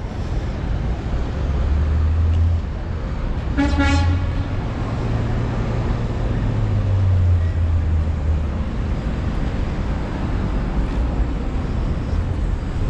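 City street traffic rumbling low and steady, with one short horn toot a little under four seconds in.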